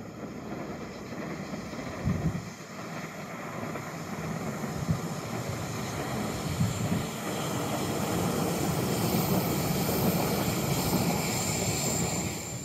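Bombardier Talent 2 S-Bahn electric multiple unit approaching and passing close by on curved track: a rolling rumble that grows steadily louder, loudest shortly before the end, with a thin high whine rising over it near the end. A few low thumps come around two and five seconds in.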